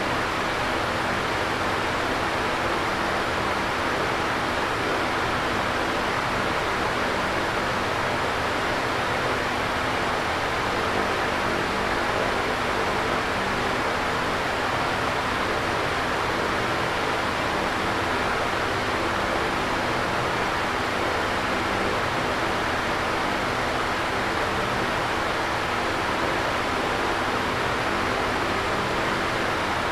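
Electric fan running steadily: an even whooshing rush of air with a faint low hum beneath, unchanging in level.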